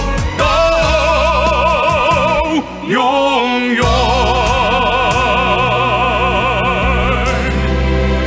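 Male and female voices singing together in operatic style over orchestral accompaniment, holding long notes with wide vibrato; about three seconds in the voices break off briefly and glide to a new pitch, then hold a final long note.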